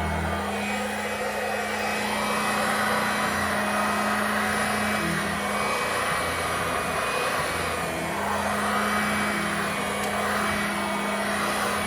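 Dirt Devil two-speed handheld vacuum cleaner running steadily: a small motor's constant hum under a broad rush of suction air, swelling and easing slightly as it is worked over the furniture.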